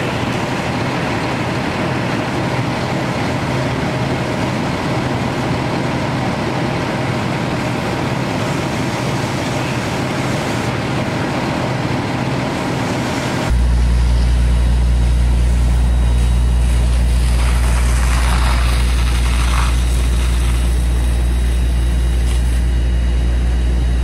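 Steady drone of fire-apparatus engines running at a house fire, with a dense hiss over it. About halfway through it switches abruptly to a louder, deeper steady hum.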